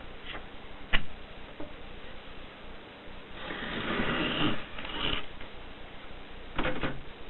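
Mercedes Selecta typewriter mechanism being worked: a single sharp click about a second in, a mechanical rattle lasting about a second in the middle, then a click and a quick cluster of clicks near the end.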